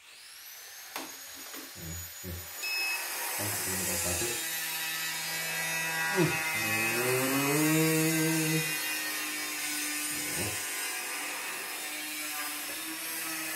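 Computerized embroidery machine running, a steady mechanical clatter with a thin high motor whine that rises as it starts and stops near the end.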